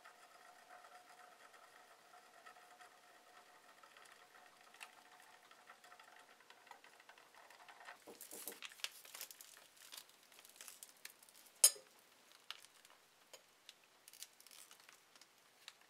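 Faint steady whine of a stir plate, which stops about halfway through. Then crinkling of a plastic-wrapped chemical cold gel pack handled against a glass beaker to cool the solution, with one sharp click in the middle.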